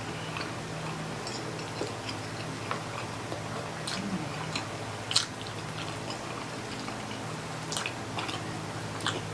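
Close-up eating sounds: a person chewing tender pork baby back ribs, with scattered wet clicks and smacks of mouth and utensils, over a steady low hum.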